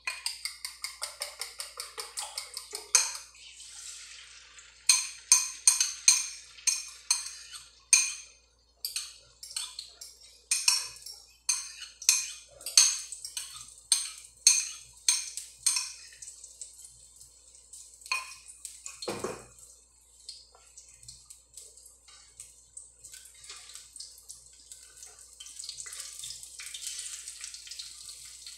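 Eggs being beaten in a bowl with a utensil, a fast run of clicks, then slower, louder clinks of the utensil against the bowl until about halfway. After that the beaten eggs sizzle steadily in hot oil in the wok, louder near the end as a ladle works them.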